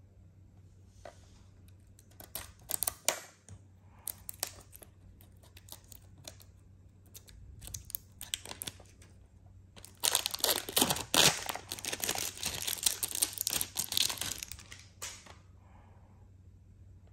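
Cellophane shrink-wrap being picked at and torn off a plastic cassette case. Scattered crackles come first, then about five seconds of dense, loud crinkling as the wrap is pulled away.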